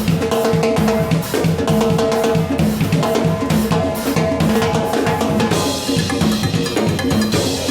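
Steel band playing live: steelpans sounding sustained, ringing chords and a bass line over a drum kit and percussion keeping a steady, driving beat. The arrangement changes about five and a half seconds in, with the chords thinning out and brighter percussion coming forward.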